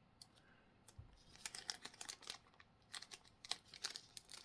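Pokémon trading cards being handled, probably pulled cards being flipped through. A faint run of short clicks and rustles starts about a second in.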